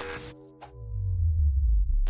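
Electronic logo sting: a short glitchy crackle of static, synth tones dying away, then a deep bass swell that builds and is loudest through the second half.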